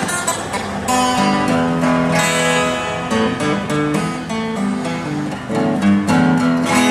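Acoustic guitar strummed, chords ringing out and changing in a steady rhythm.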